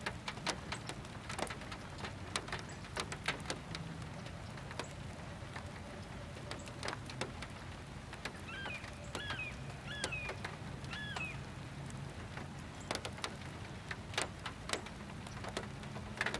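Light rain ending: scattered raindrops tapping at irregular intervals over a low, steady hum. A bird gives four short calls about nine to eleven seconds in.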